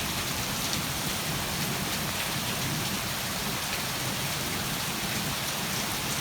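Heavy rain pouring down steadily in a thunderstorm, with a low rumble of thunder underneath.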